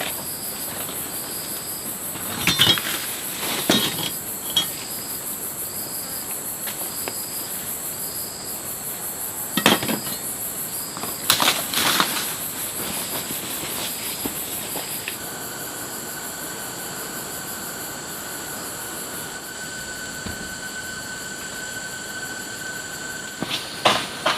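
Insects calling in a steady, high-pitched chorus, with a second, slower pulsed call repeating about once a second. A few sharp knocks and crackles break in now and then and are the loudest sounds.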